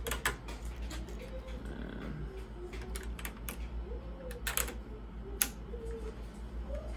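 Irregular clicks and light rattling of plastic and metal as the bus-bar strip with its connectors is handled and pulled free from the cell terminals of a Toyota Prius hybrid battery pack, the sharpest click about five and a half seconds in.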